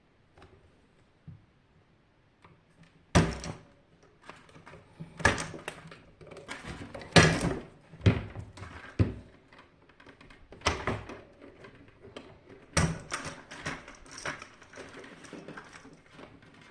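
Irregular knocks and clatter of parts and tools being handled while a water heater is taken apart, with a few sharp loud knocks among quieter rattling.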